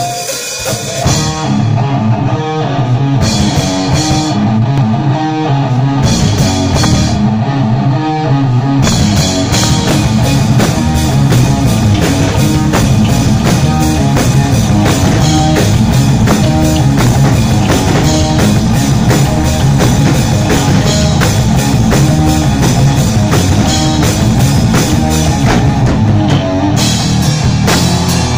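Live rock band playing electric guitar, bass and drum kit, loud. The playing is sparser at first, with the full band and cymbals coming in steadily about nine seconds in.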